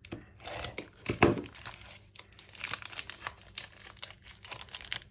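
Wrapper of a sealed trading card pack crinkling as it is handled and pulled at in an effort to tear it open: a run of small crackles and rustles, loudest about a second in.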